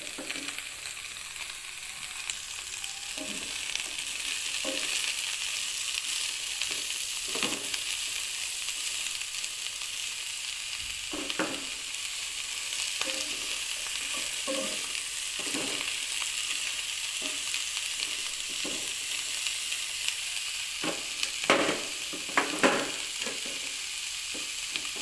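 Sliced napa cabbage, carrots and cauliflower sizzling as they stir-fry in hot oil in a nonstick pan, with a steady hiss. Stirring strokes scrape and knock against the pan every second or two, with a few louder knocks near the end.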